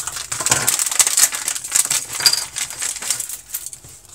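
Metallized anti-static bag crinkling as it is cut open with a knife and handled: a dense, irregular crackle that thins out near the end.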